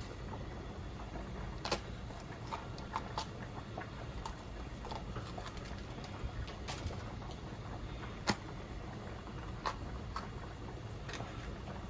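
Scattered light clicks and taps at irregular intervals, typical of kitchen utensils and ingredients being handled during food prep, over a steady low background hum.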